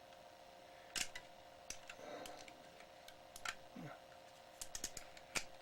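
Scattered sharp clicks and taps of a plastic model submarine hull being handled, a handful of them spread through the few seconds, over a steady faint hum.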